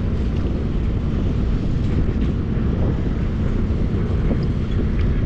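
Wind buffeting the microphone, a steady uneven low rumble with faint outdoor hiss above it.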